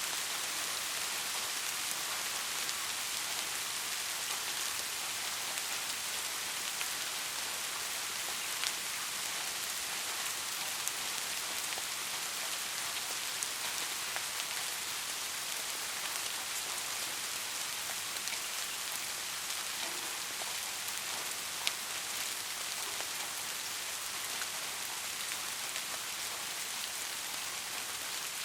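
Steady rain falling, an even hiss, with now and then a single sharper drop tick standing out, about four times.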